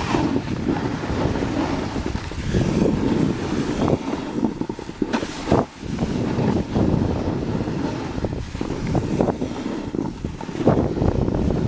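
Wind buffeting the microphone, rising and falling in gusts.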